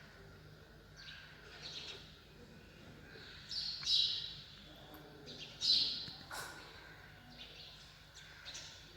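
A woodpecker calling: a series of short calls repeated every second or two, the loudest about four and six seconds in.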